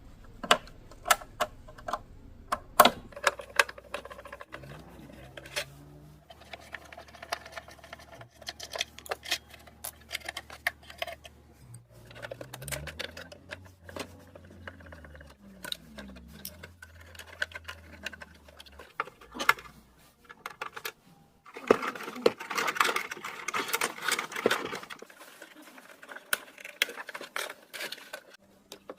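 Small plastic and metal parts of a cassette player being handled during repair, giving irregular clicks and knocks, with a few seconds of scratchy rubbing noise about three quarters through.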